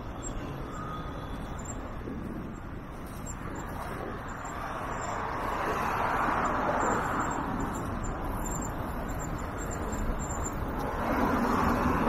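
Street traffic: vehicles passing, with the noise swelling about halfway in and again near the end.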